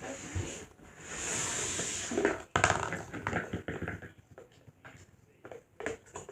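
Blind-bag wrapper rustling and crinkling while being handled, with a sharp crackle about two and a half seconds in followed by a string of light, irregular clicks and taps.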